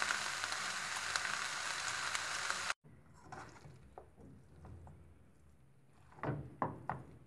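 Noodles and vegetables sizzling as they are stir-fried in a hot pan; the steady sizzle cuts off abruptly a little under three seconds in. After that comes quieter stirring with a plastic utensil: soft scrapes and a few clicks and knocks against the pan near the end.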